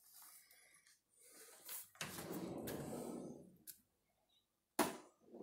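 IKEA kitchen drawer pulled out on its runners about two seconds in, a sliding, rattling sound lasting about a second as the utensils inside shift. A single sharp click follows near the end.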